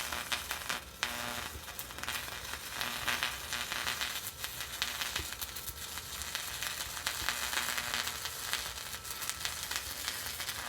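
Electric arc welder running a bead, a steady crackling sizzle with a few brief breaks. The arc is on rusty metal coated with paint and concrete. The arc stops abruptly near the end.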